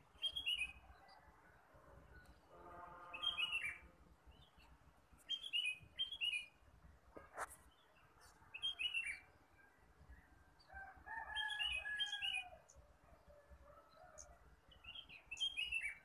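Small songbirds calling at dawn, short phrases of three or four quick descending notes repeated every couple of seconds. Lower, longer calls come in about three seconds in and again around eleven seconds in.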